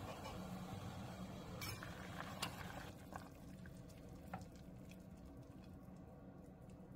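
Water boiling in a stainless steel pot, with a few sharp clinks of a metal slotted spoon against the pot as boiled cauliflower florets are scooped out. The bubbling grows quieter about three seconds in.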